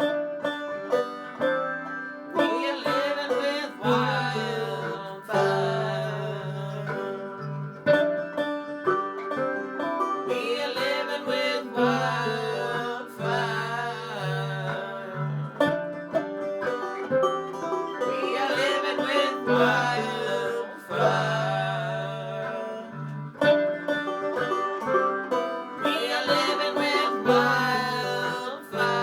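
Banjo picking a folk tune, with a voice singing over it in phrases.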